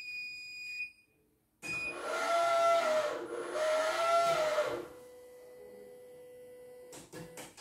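Computerized embroidery machine powering up: a beep, then its motors whine, rising and falling twice as the mechanism moves, settling into a steady hum with a few clicks near the end.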